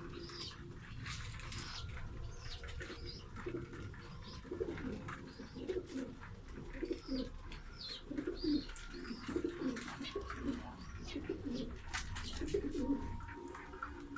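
Pigeons cooing in a run of repeated low phrases, with short high chirps from smaller birds throughout.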